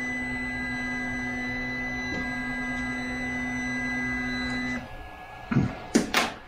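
Anet 3D printer's stepper motors whining with a steady pitched tone as they raise the extruder, cutting off abruptly about five seconds in. A few sharp clicks follow near the end.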